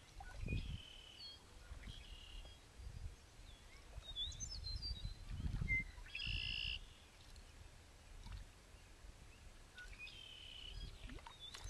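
Birds calling: a few short, clear notes and quick chirps scattered through, the loudest about two-thirds of the way in, over a faint, uneven low rumble of wind on the microphone.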